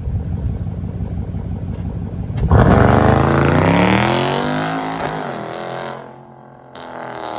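Dodge Durango SRT's 6.4-litre HEMI V8, running on a Diablosport I3 tune, idling, then floored about two and a half seconds in: the engine note jumps up loudly and rises in pitch for about two and a half seconds under hard acceleration before easing off and dropping away about six seconds in.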